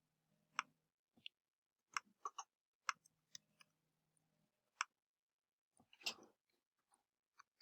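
Faint, scattered clicks of a computer keyboard and mouse at irregular intervals, about a dozen in all, with a short burst of them about six seconds in.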